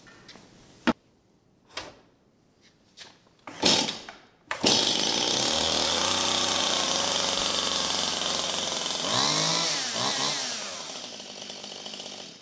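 Stihl two-stroke chainsaw being started: a few short pulls first, then about four and a half seconds in the engine catches and runs loud and steady. Around nine to ten seconds its pitch dips and rises as the throttle is worked, and it runs more quietly near the end.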